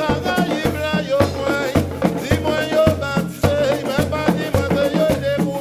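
Live drum ensemble of skin hand drums (ka drums) and snare drums beating a steady pulse of about two strokes a second, with shakers, and a lead voice singing over it.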